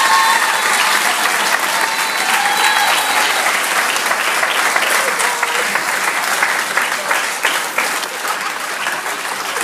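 Audience applauding steadily, with a few cheering voices over the clapping at first, easing off a little near the end.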